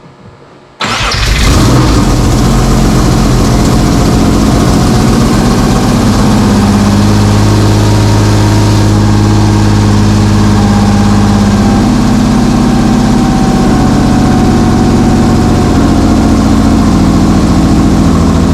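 Subaru SVX's 3.3-litre EG33 flat-six engine catching about a second in and then running steadily at idle, with the vacuum leak still not cured because a replacement hose was the wrong one.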